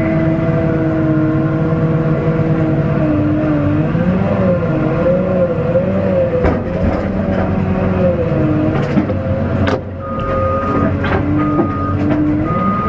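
Cat 950M wheel loader's diesel engine heard from inside the cab, its pitch rising and falling as the machine works, with a few sharp knocks and clunks. In the last few seconds a reversing alarm beeps about once a second.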